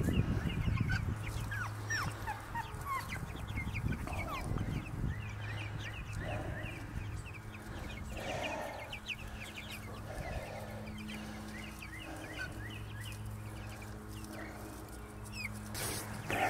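A flock of young Cornish cross broiler chicks, about two and a half weeks old, peeping and chirping: many short, high, falling peeps overlapping, with a steady low hum underneath.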